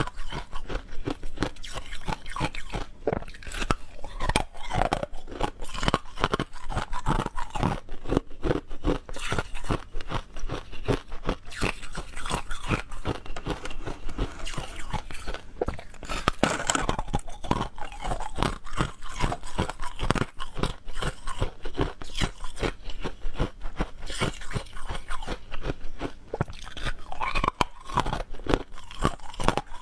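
Hard frozen ice pieces being bitten and chewed close to a clip-on microphone: a dense, continuous run of sharp, brittle crunches, several a second.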